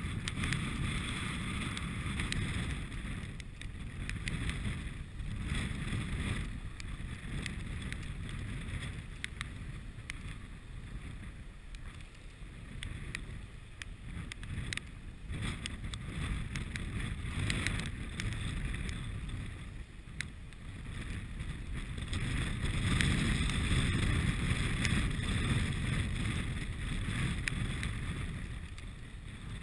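Strong wind buffeting the microphone in a gusting rumble, over choppy water lapping, with a few faint clicks; the wind swells louder for several seconds near the end.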